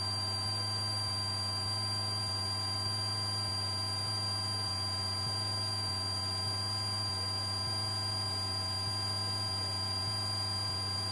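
Light Cessna's piston engine and propeller at full takeoff power, heard as a steady buzzing drone, with a thin high whine above it.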